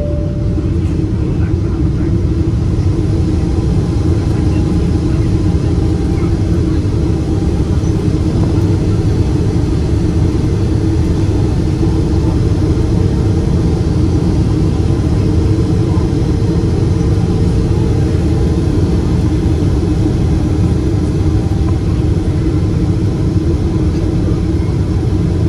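Steady drone of a Boeing 777's engines and airflow heard inside the passenger cabin, an even, deep rumble with no change in pitch.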